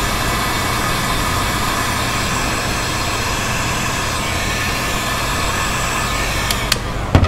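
Heat gun blowing steadily, heating a plastic strip to flatten it. A few sharp clicks and knocks come near the end.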